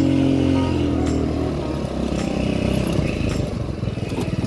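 Small go-kart engine running as the kart drives along, its pitch sinking over the first second or so and then settling into a fast, even pulsing.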